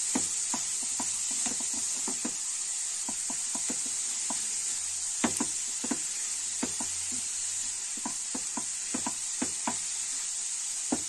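Grated cauliflower sizzling as it fries in oil in a kadhai, with a steady hiss, while a silicone spatula stirs it and scrapes and taps against the pan at irregular moments. The cauliflower is being fried to take off its rawness and dry out the water it releases.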